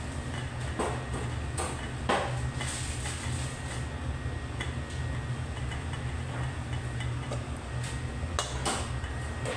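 Wooden spatula scraping and knocking against a nonstick pan as fried rice is stirred, in a handful of separate strokes, over a steady low hum.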